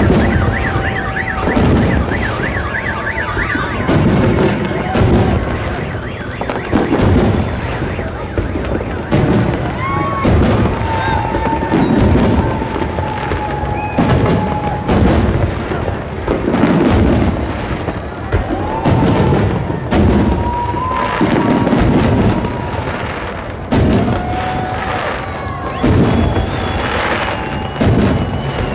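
Aerial firework shells bursting in quick succession, a bang about every second, over crowd noise. A car alarm warbles through the first few seconds, and long whistling tones rise and hold several times.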